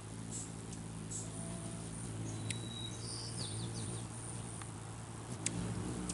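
Rufous hummingbirds' wings humming as they hover close in, with a few short high chirps and sharp ticks among them.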